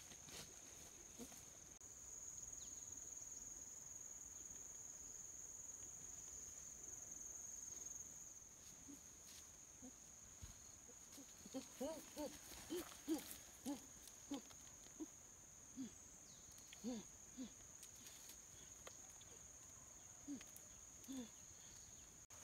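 A steady high-pitched insect drone, a little louder for several seconds near the start. From about halfway, a string of short low animal calls comes in at irregular intervals.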